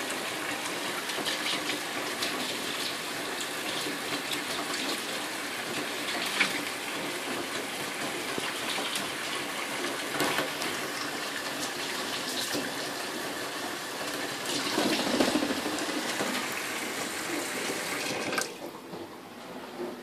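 Kitchen tap running into a stainless-steel sink as a kakariki bathes in the stream, with splashes from its fluttering wings. The rush of water drops away sharply near the end.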